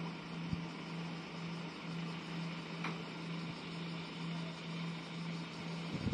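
Steady low hum over a faint outdoor hiss, with one faint brief tick about three seconds in.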